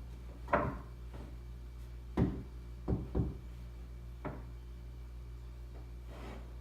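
A handful of separate knocks and clunks from handling hardware and tools, the loudest about two seconds in and a quick pair about a second later, with a softer rustle near the end, over a steady low hum.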